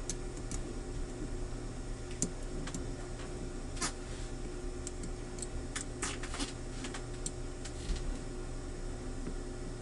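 Faint, irregular small clicks of a lock pick and tension tool working the pin stack of a propeller nut lock's cylinder, over a steady low hum.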